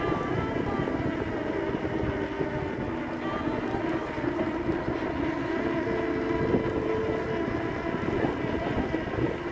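Steady running noise of a vehicle travelling along a paved road: tyre and wind rumble with a constant hum.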